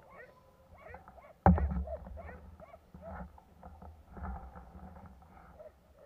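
Animal calls: many short chirping calls, several a second, over a low gusting rumble of wind on the microphone that swells suddenly about a second and a half in.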